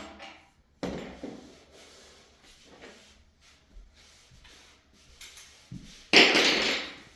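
Handling noises while taking apart a bed frame: a knock about a second in, light rattling, then a louder clatter near the end lasting about a second.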